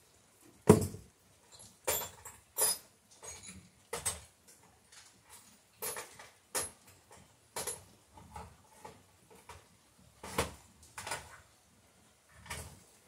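Irregular knocks, clicks and clatters of hand tools being handled and set down while rummaging for a nail set, about a dozen spread unevenly, the loudest a sharp knock about a second in.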